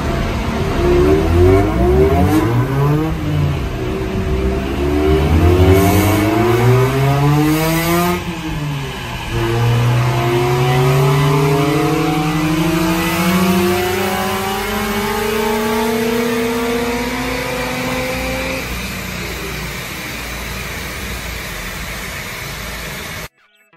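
Mazda RX-8's two-rotor Renesis rotary engine, breathing through an HKS metal catalyst and Autoexe muffler, revving up through the gears on a chassis dynamometer during a power run. The revs climb and drop sharply at upshifts about 3 and 8 seconds in, then rise through one long pull until the throttle closes at about 18 seconds and the engine winds down. The sound cuts off suddenly near the end.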